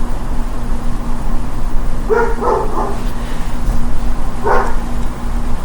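A dog barking: three quick barks about two seconds in and one more about two seconds later, over a steady low hum.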